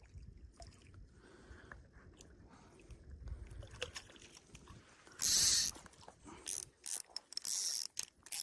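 Fishing rod and reel being handled and wound: scattered clicks and ratcheting, with two short hissing bursts, the louder about five seconds in, over a low wind rumble.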